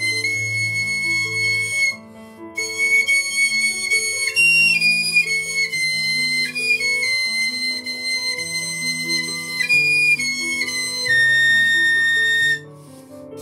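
Piccolo playing a slow, high melody, breaking off briefly twice, about two seconds in and near the end, over a lower accompaniment.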